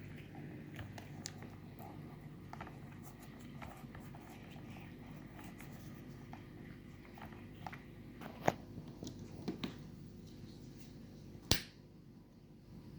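Light clicks and taps of the upright vacuum cleaner's plastic parts being handled during a cable repair, with a sharper click past the middle and a louder one near the end, over a low steady hum.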